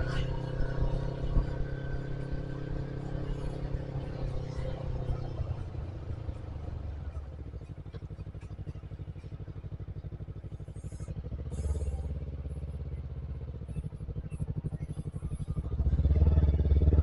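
Motorcycle engine running on a ride, with a higher droning tone that fades out about five seconds in. After that the engine settles into an even, plainly pulsing beat and picks up again around twelve and sixteen seconds.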